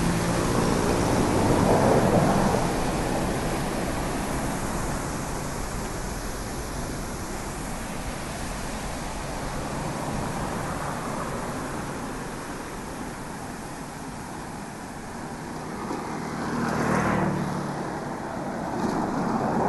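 Road traffic: a steady rush of noise with vehicles passing, the loudest pass-bys about two seconds in and near the end.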